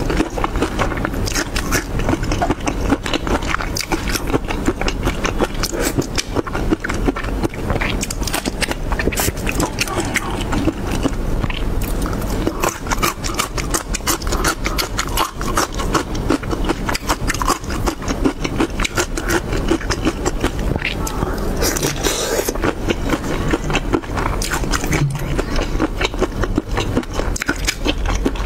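Close-miked eating of shrimp in chili sauce: wet chewing, biting and lip smacks in a dense, steady run of small clicks, with the soft tearing of shrimp by hand.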